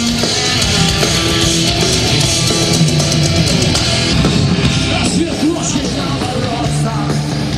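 Heavy rock band playing live, with distorted electric guitars, bass and drums.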